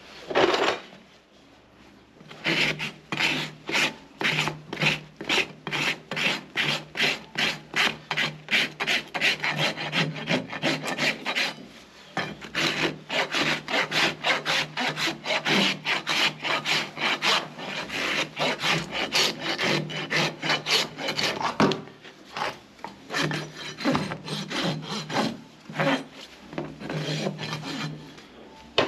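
Farrier's flat hoof rasp filing a horse's hoof, in rapid back-and-forth strokes of about two to three a second, with brief pauses partway through.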